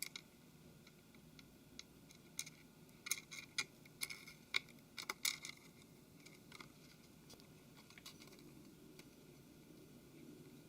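Faint, scattered small clicks and light taps of a Galaxy Note 3's home key flex cable and front housing being handled and fitted, bunched together a few seconds in.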